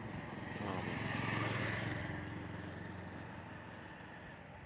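A vehicle engine running while on the move, with road and wind noise that swells about a second in and then slowly fades.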